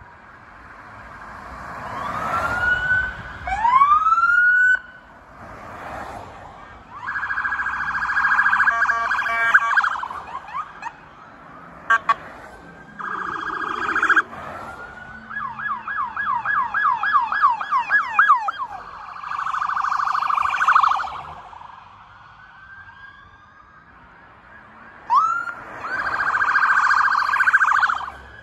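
Sirens of several passing police cruisers, sounding in short bursts one after another. There are rising wails about two seconds in and near the end, a fast yelp of quick repeated sweeps in the middle, and rapid warbling tones between.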